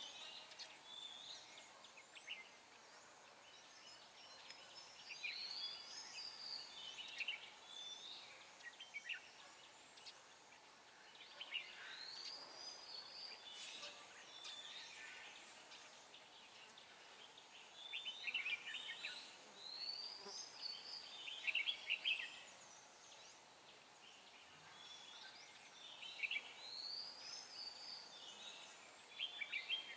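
Red-whiskered bulbul singing: short bouts of quick, warbled, rising-and-falling notes, repeated about every seven seconds.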